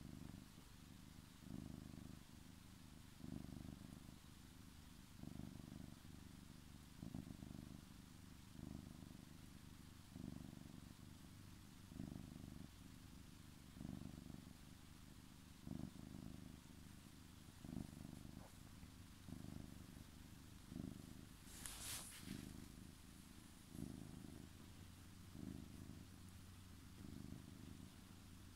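Domestic cat purring close to the microphone, low and rhythmic, each swell of the purr coming with a breath about every one and a half to two seconds. A brief scratchy rustle cuts in about three-quarters of the way through.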